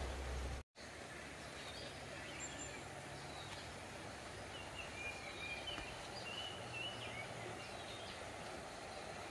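Outdoor ambience: birds calling in short whistled notes over a steady background hiss. The sound cuts out for an instant under a second in, and a louder low rumble before that gives way to the quieter bed.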